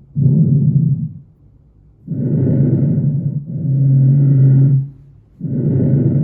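Lung breath sounds heard through a stethoscope on the front of the chest: slow, even breathing, each inhale followed at once by an exhale, with short pauses between breaths.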